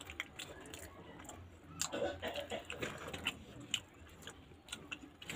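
Quiet eating of pizza: chewing with scattered small clicks and smacks of the mouth.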